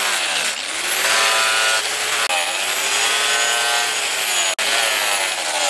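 Angle grinder with an abrasive disc grinding a forged steel axe head, its motor whine sagging and recovering in pitch as the disc is pressed into and eased off the steel. The sound breaks off for an instant about four and a half seconds in.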